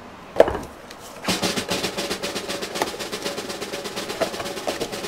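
A single sharp knock, then from about a second in a fast, steady snare drum roll.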